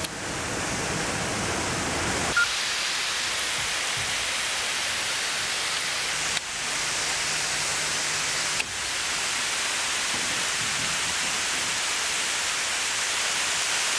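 Steady rush of a waterfall, a constant hiss of falling water that shifts abruptly in level three times.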